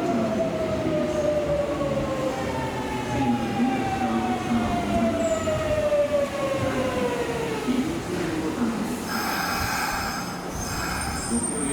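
Kintetsu commuter electric train braking into the station: the traction motors' inverter whine falls steadily in pitch as it slows. Near the end, high squealing sets in, in two spells, as the train comes to a stop.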